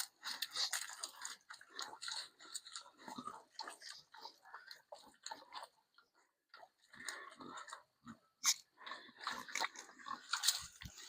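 Pigs close up, mouthing and chewing at something that is not food, as if it were: irregular crunching, clicking and scraping with a short lull about six seconds in.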